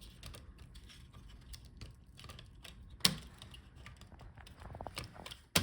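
Light plastic clicks and small taps of hands and a tool working inside a laptop, disconnecting the video cable connector from the motherboard: faint scattered ticks, with two sharper clicks, one about three seconds in and one near the end.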